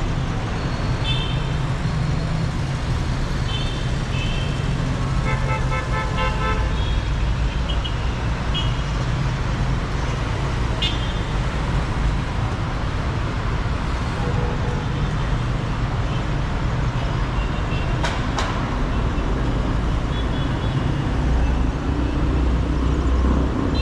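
Dense city street traffic: a steady rumble of car, bus and motorbike engines, with frequent short car-horn toots from different vehicles and one longer horn blast about six seconds in.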